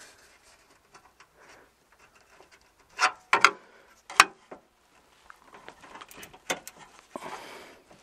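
Small plastic clicks, knocks and rattles of a wiring-harness plug and its retaining pins being squeezed and worked loose by hand. A few louder clicks come about three to four seconds in, more sharp clicks follow later, and there is a short rustle near the end.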